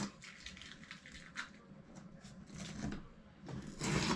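Painter's tape being peeled up off a model railroad layout, with irregular soft crackles and a louder stretch of peeling near the end.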